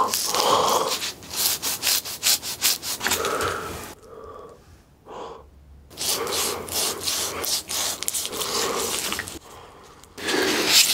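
Gloved hands handling a whole raw beef tongue on a wooden board: the moist meat rubbing and squishing against the gloves and board in short, irregular sounds, quieter for a couple of seconds around the middle.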